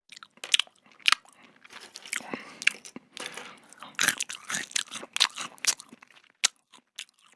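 Close-up sound of a person chewing crunchy food: irregular crunches and crackles of uneven loudness, the sound of the mouth while eating.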